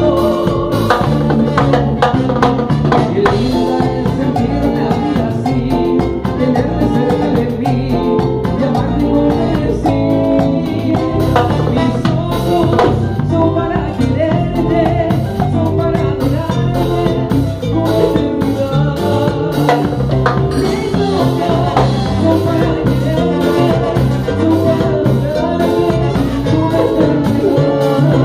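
Live salsa band playing an instrumental passage, with drum kit and Latin percussion keeping a steady beat under piano and bass lines.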